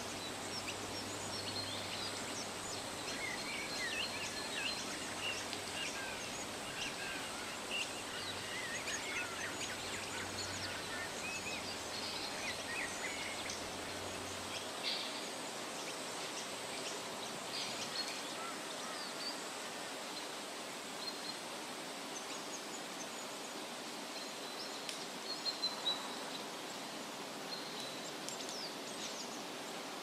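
Outdoor garden ambience: birds chirping in short high calls over a steady background hiss. The calls come most often in the first half, and a low hum stops about halfway through.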